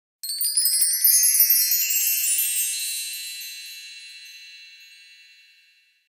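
A shimmering cascade of high, bright chime tones, many struck in quick succession, then ringing on and slowly fading away over about five seconds.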